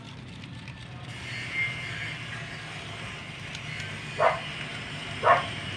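A dog barking twice, about a second apart, over a steady low hum.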